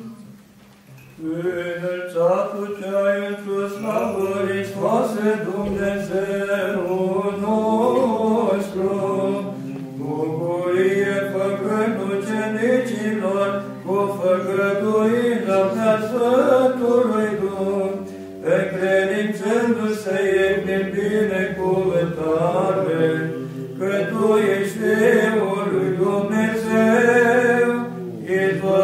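Orthodox liturgical chant sung by several voices. A slow melody moves over a steady held low note, after a short pause about a second in.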